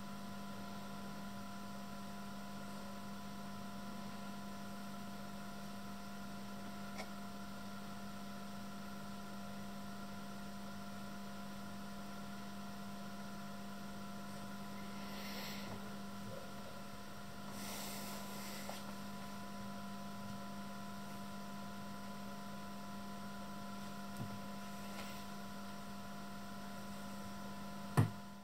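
Steady electrical mains hum, with a few faint steady higher tones above it, from a powered-on N313 oscilloscope idling with no signal; a short sharp click near the end.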